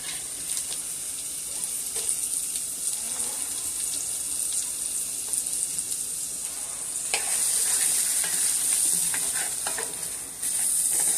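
Chopped onion and garlic sizzling in melted butter in a pan, with a utensil clicking and scraping as they are stirred. The sizzle gets louder about seven seconds in.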